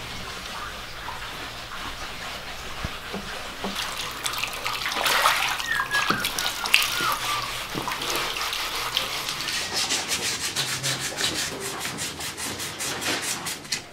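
Hand-stripping and sanding of old wooden furniture: rasping scraping and scrubbing strokes, then in the last few seconds quick, even sandpaper strokes about four or five a second. A short wavering squeak sounds about five to six seconds in.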